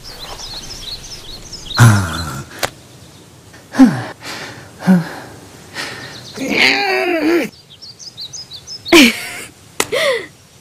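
Soft birdsong chirping in the background, broken by several short wordless voice sounds from the characters, exclamations and sighs that mostly fall in pitch.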